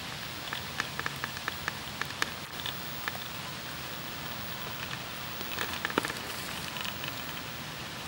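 Baby raccoons foraging in gravel and grass and crunching crunchy cat treats: scattered small clicks and crackles over a steady hiss, thickest in the first three seconds and again around six seconds in.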